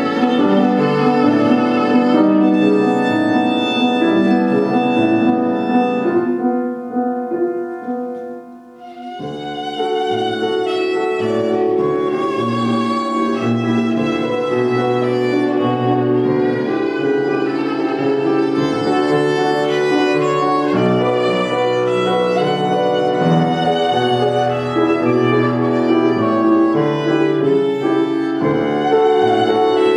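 Solo violin played by a child, with piano accompaniment, in a lyrical classical piece. The music dies down briefly about seven seconds in and resumes with a fresh phrase about two seconds later.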